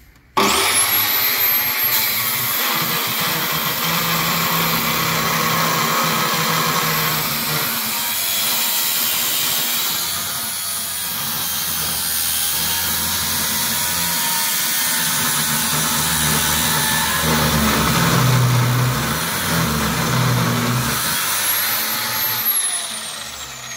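Parkside PMTS 180 A1 metal cut-off saw: the 1280 W motor starts up with a quickly rising whine, and its 180 mm abrasive disc grinds through a 4 mm-wall square steel tube. The motor is switched off near the end and its whine falls away as the disc spins down.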